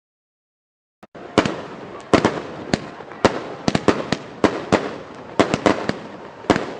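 Fireworks going off: after a second of silence, a rapid, irregular string of sharp bangs, about two to four a second, with crackling between them.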